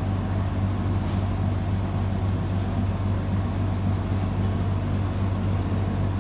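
A steady low electrical hum, with faint, fast, rhythmic scratching of a colored pencil shading on paper that pauses briefly about four seconds in.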